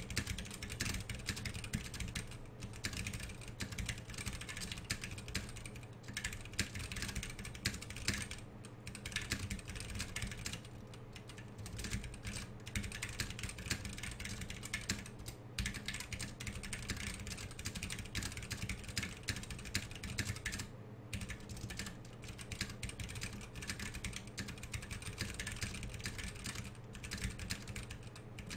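Fast, continuous typing on a custom 60% mechanical keyboard with 67 g Zealios tactile switches and DSA Granite keycaps: a dense run of keystroke clicks that breaks off briefly a few times.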